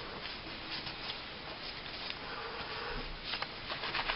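Faint rubbing and handling noise from cleaning a pistol's parts with a rag, ending in a quick run of light scratchy ticks.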